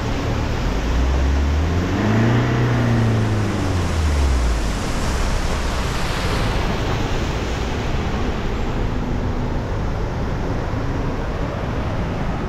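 SUV driving over a rough dirt and gravel road: the engine revs up and back down about two to four seconds in, over a steady rushing noise.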